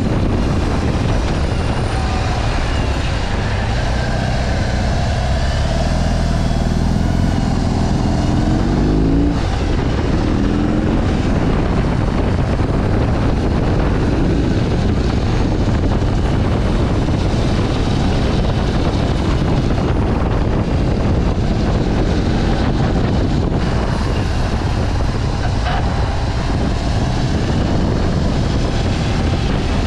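BMW R18's 1,800 cc boxer twin under way, mostly buried in heavy wind noise on the microphone. About six seconds in the engine note climbs under acceleration, breaks off briefly just after nine seconds, then climbs again.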